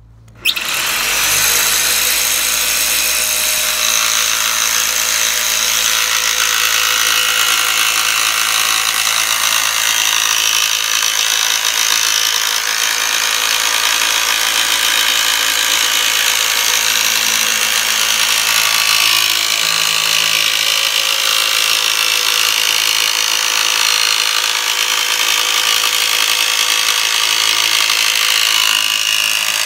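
Electric jigsaw running steadily as it cuts a square opening in a vehicle roof panel for a roof fan, starting up suddenly about half a second in.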